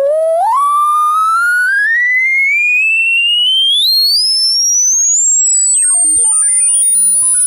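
Electronic test tone sweeping steadily upward in pitch, from a mid-range hum to a piercing high whine that levels off near the end, held at a loud, even level.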